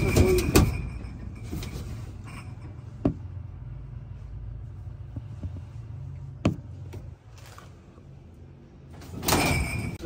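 Knocks and clattering from the panels and shelves of a shop drinks fridge being handled: a noisy burst at the start, single sharp knocks about three and six and a half seconds in, and another clattering stretch near the end, over a low steady hum.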